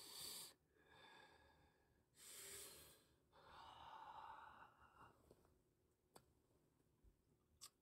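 Faint breathy exhales and sighs from a man, in a few soft bursts over the first five seconds, followed by two faint clicks near the end.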